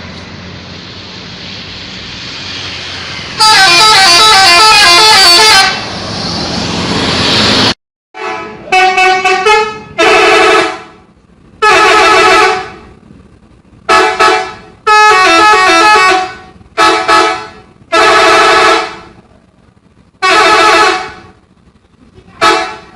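Telolet musical multi-tone horn of a Rosalia Indah bus playing its stepping melody. One long blast sounds over the engine and road noise, then, after a break, a string of about ten shorter blasts follows one after another.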